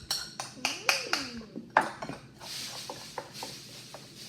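Quick clicks and knocks of small objects handled on a tabletop, then a soft, steady hiss with a few faint ticks from about two and a half seconds in.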